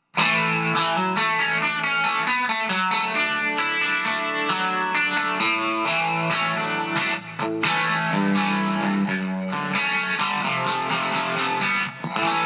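Electric guitar played through a Vox Valvetronix AD50VT-XL modelling amp on its 'Funked' amp setting: many short notes and chords in quick succession, starting abruptly and dropping out briefly about seven seconds in.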